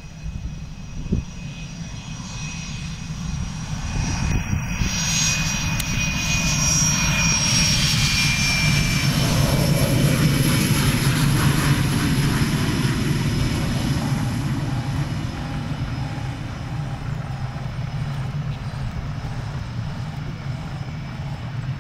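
Swiss Air Force F/A-18 Hornet's twin General Electric F404 turbofans running as the jet taxis past on the runway: a high turbine whine over a low rumble. It builds to its loudest about ten seconds in, then slowly fades as the jet moves away.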